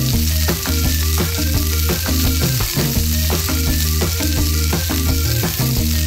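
Dough strips sizzling as they deep-fry in hot oil in a miniature wok, a steady hiss, under background music with a steady beat and bass line.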